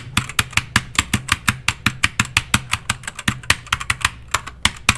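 Keychron K4 mechanical keyboard with LK optical switches typed on hard and fast, about seven or eight sharp clacks a second, each with a low thud under it. The keys are bottoming out under heavy typing, without O-rings fitted.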